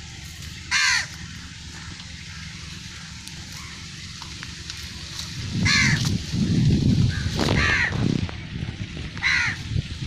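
A crow cawing four times: once near the start and three times in the second half. A low, uneven rumbling noise builds up about halfway through and runs on under the later caws.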